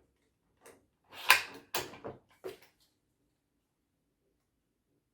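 Savage Axis II bolt-action rifle's mechanism being worked by hand: a quick run of about five sharp metallic clicks and clacks in the first three seconds.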